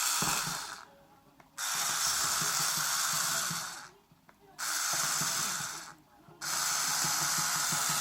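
A small motor-driven appliance blowing air with a loud hiss, switched on and off repeatedly: it starts abruptly about a second and a half in, again about four and a half seconds in, and again near the end, winding down briefly each time it is switched off.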